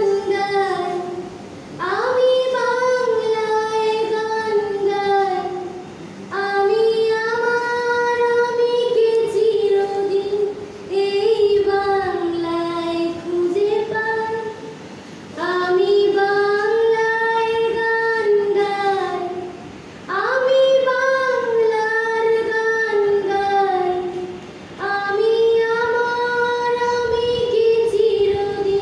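A woman singing a slow song solo and unaccompanied into a microphone. She sings in long held phrases of about four seconds, with short pauses for breath between them.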